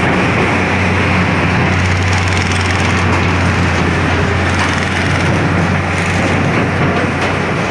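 Track-laying machine running: a steady low engine hum under broad mechanical noise, with a few faint clicks.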